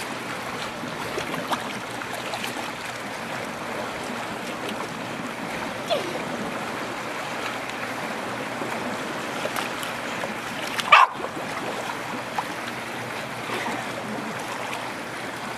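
Lake water lapping and splashing against a wooden dock, with a small white dog giving a short high-pitched yelp about eleven seconds in and a fainter whine around six seconds in.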